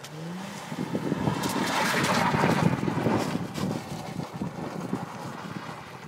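Mazda RX-8's rotary engine revving up briefly at the start, then a loud rushing, crackling noise that swells for a couple of seconds and slowly fades as the car slides sideways on the ice.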